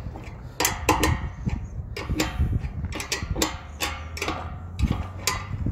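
Irregular metallic clicks and knocks as the screw on a satellite dish's tripod mount is tightened.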